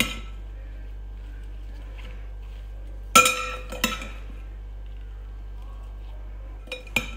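A metal spoon clinking against a glass bowl while tossing oiled oyster mushrooms. Two sharp clinks a little over three seconds in, each ringing briefly, and two more near the end.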